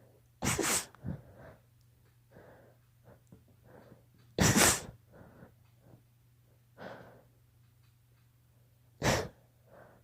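A girl sneezing three times in a row from allergies, about four seconds apart, with quieter breaths between the sneezes.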